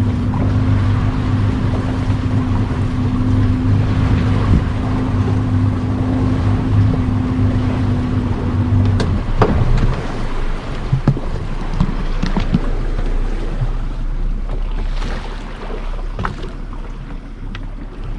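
A boat's outboard motor runs at a steady pitch, then cuts out about halfway through. After that come wind and water noise with a few light clicks and knocks.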